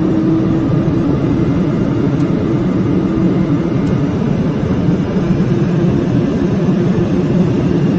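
Boeing 747-400 jet engines running up to stabilization thrust for the takeoff roll. A steady, loud rumble with a faint hum, heard inside the cockpit.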